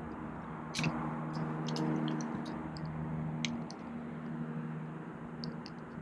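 Scattered light metallic clicks and ticks from slip-joint pliers turning the RV door's deadbolt mechanism, over a faint low steady hum.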